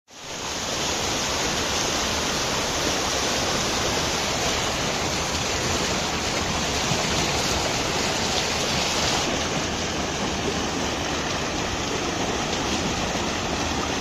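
Rushing water of a waterfall, a steady, even roar that fades in at the start.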